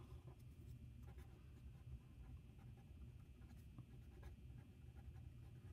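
Faint scratching of a pen writing a couple of words on lined notebook paper.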